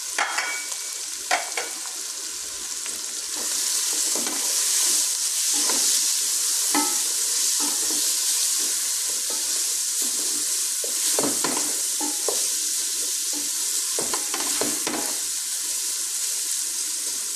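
Onion, capsicum and carrot frying in oil in a pan with spices, sizzling steadily, with a spoon now and then knocking and scraping against the pan. The sizzle grows louder a few seconds in.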